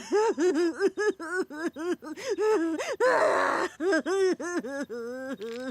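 Cartoon character vocalising in gibberish, a quick run of short syllables, each rising and falling in pitch, with a breathy hiss about three seconds in.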